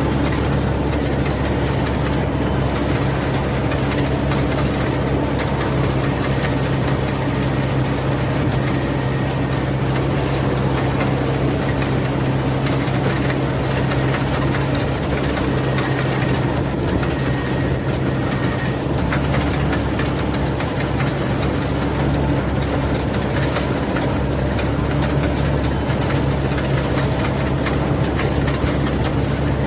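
Rice combine harvester running steadily under load, a continuous low engine hum with mechanical noise above it.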